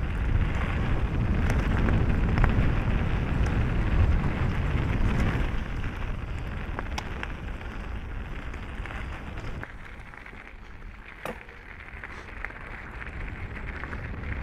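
Mountain bike riding along a dirt singletrack: wind rushing over the action camera's microphone and tyres rolling on the trail, with scattered sharp clicks and rattles from the bike. The rush is loudest for the first five seconds or so, then eases.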